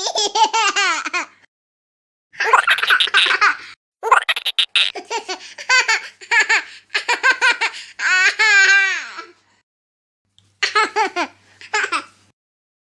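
High-pitched, baby-like laughter in four bursts with short pauses between them, the longest running several seconds through the middle.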